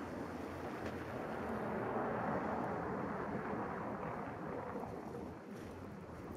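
A car driving past on a snow-covered street: tyre noise that swells about two seconds in, then fades away.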